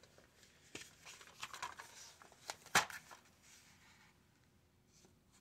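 Faint handling of a plastic DVD case: soft rustling and light clicks, with one sharper click nearly three seconds in.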